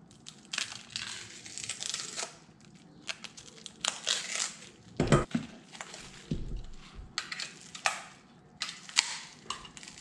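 Clear plastic wrapping and bubble wrap crinkling and crackling in short, irregular spells, with a few sharp crackles, as a plastic-wrapped seatbelt pretensioner is unpacked and handled.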